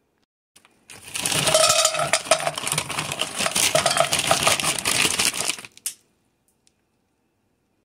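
Frozen berries poured from a plastic bag into a saucepan, a dense clatter of hard frozen fruit rattling onto the pan for about five seconds, starting about a second in and stopping abruptly.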